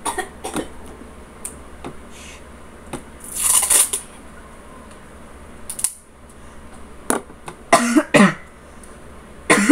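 A few light knocks of a paper-and-tape object set down on a wooden desk, a short rustling burst, then several short coughs near the end.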